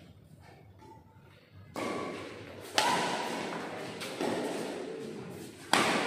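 Badminton rackets striking a shuttlecock in a doubles rally: four sharp hits, starting after about a second and a half and coming roughly a second apart, each ringing on in the big hall's echo.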